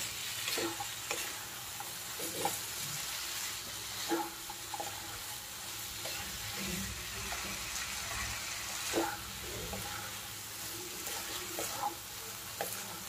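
Wooden spatula stirring boiled potatoes and peas through masala paste in a non-stick kadai, over a steady sizzle of frying. The spatula scrapes and knocks against the pan every so often.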